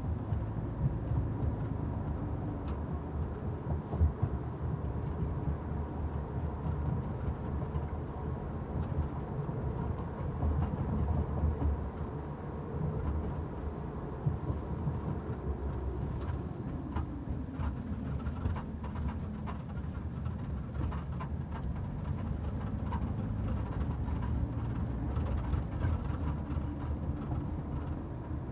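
Road and tyre noise inside a 2014 Mazda 6 (GJ) driven over uneven road, with repeated short knocks and rattles, thickest in the second half. The knock comes only on rough road, and the owner suspects it comes from the boot or from behind a rear strut.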